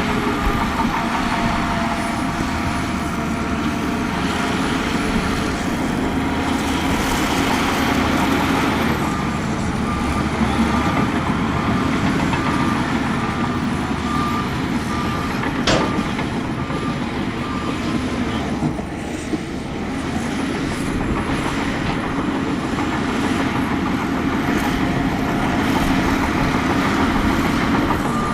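Heavy diesel earthmoving machinery running steadily under load. A reversing alarm beeps regularly for several seconds in the middle and starts again near the end, and there is a single sharp clank about 16 seconds in.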